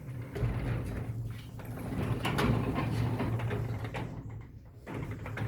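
Garage door moved by hand along its tracks, released from the opener: a rolling rumble with rattles and clicks that dies away about four seconds in, then a brief clatter near the end.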